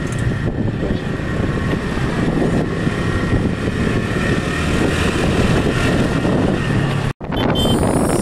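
Steady rumble of a moving vehicle, engine and road noise with some wind on the microphone. It cuts out abruptly for a split second about seven seconds in.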